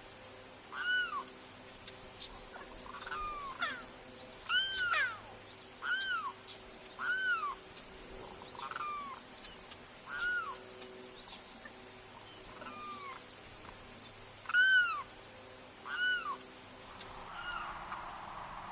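Limpkin giving its loud wailing cry over and over, each call rising and then falling in pitch, with fainter calls in between.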